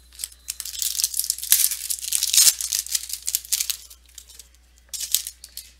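Foil wrapper of a trading-card pack being torn open and crinkled by hand, a dense crackling rustle for about four seconds, then a shorter burst near the end.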